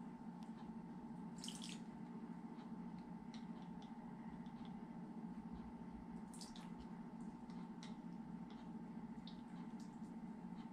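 Faint pouring and dripping of lemon juice from a citrus juicer's cup into a tablespoon and down into a pot, with small ticks and two brief splashes, over a steady low hum.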